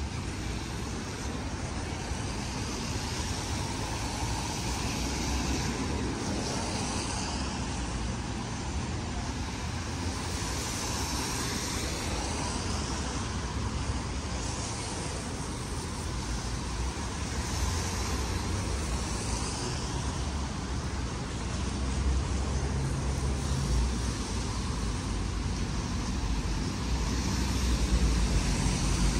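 Traffic on rain-wet streets: a steady rumble of cars, with the hiss of tyres on wet road swelling and fading as vehicles pass every few seconds, a little louder near the end.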